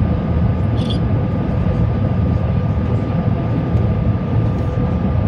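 Steady in-flight cabin noise inside an Airbus A321: a deep rumble of engines and rushing air with a steady whine running through it.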